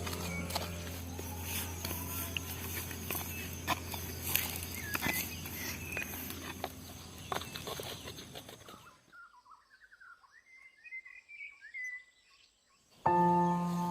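Outdoor sound of many small crackles and clicks over a low steady hum, fading after about nine seconds to a few bird chirps. It cuts to silence, then music starts near the end.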